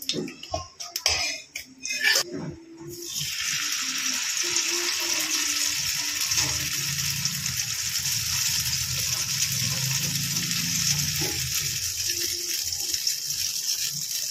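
Rava bun dosa batter sizzling in hot ghee in a small kadai. A few clicks and knocks come first; about three seconds in, as the batter goes into the pan, a steady sizzle starts and keeps on, easing a little near the end.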